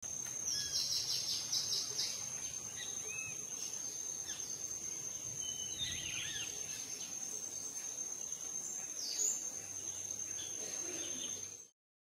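Wild birds chirping and trilling over a steady high-pitched insect buzz; the sound cuts off suddenly near the end.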